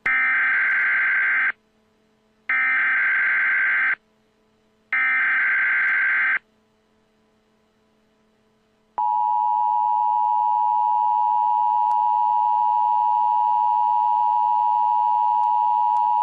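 Emergency alert tones: three short bursts of the warbling digital data header (SAME), about a second apart, then, after a pause of a couple of seconds, the steady two-tone attention signal, a loud continuous dual tone that holds without a break.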